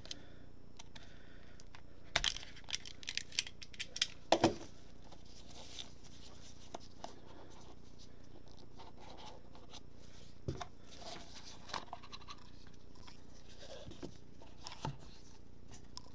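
Small cardboard card box being slit open with a blade and handled: a cluster of sharp scrapes and clicks from about two to four and a half seconds in, then scattered light taps and rustles as the box is opened and the cards are set down.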